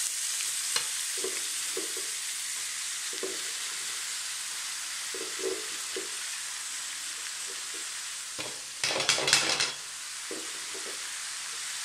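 Fresh leafy greens frying in hot tempering oil in an aluminium kadai, a steady sizzling hiss as they are stirred and start to wilt. About nine seconds in there is a louder burst of noise for about a second.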